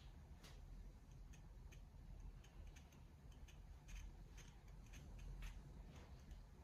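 Near silence: low room tone with faint, scattered small ticks.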